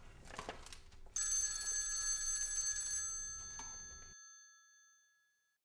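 A telephone bell ringing: a single ring that starts suddenly about a second in, rings steadily, then fades away and cuts off to silence.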